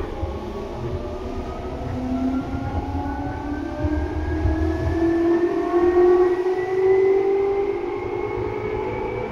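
Seibu 2000 series electric train running under power: a loud motor and gear whine of several tones rising slowly in pitch as the train gathers speed, over a low rumble from the wheels and track.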